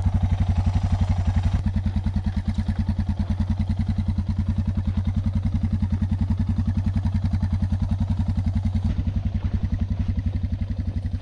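Dual-sport motorcycle engine running at a low, steady speed on a sandy dirt track, with an even, rapid pulsing beat.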